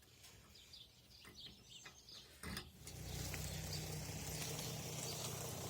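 Faint bird chirps over quiet outdoor background. About two and a half seconds in there is a knock, and then a steady hum with hiss comes in and holds, louder than what came before.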